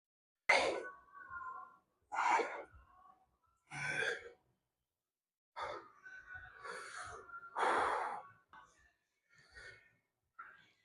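A man breathing hard: a run of about six loud exhales and sighs, with a longer stretch of uneven breathing about two-thirds of the way through.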